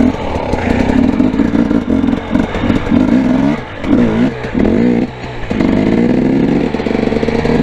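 Two-stroke dirt bike engine revving under throttle during slow wheelie practice, with several quick rises and falls in pitch around the middle, then held steadily at higher revs while the front wheel is up.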